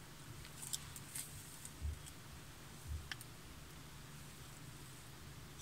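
A few faint clicks and light taps in the first three seconds from hands handling a small crystal and its packaging, over a low steady room hum.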